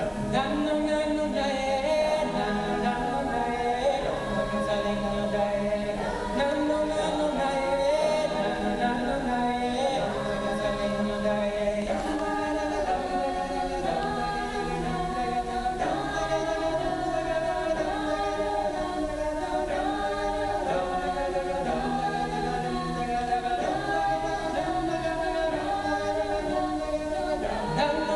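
Mixed men's and women's a cappella group singing in close harmony, with no instruments. A low bass part holds long notes under the upper voices.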